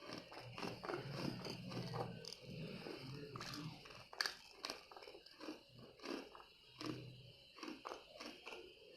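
Close-up chewing of kadalai muttai, a hard peanut-and-jaggery candy, with irregular crisp crunches as it is bitten and ground between softer chewing sounds.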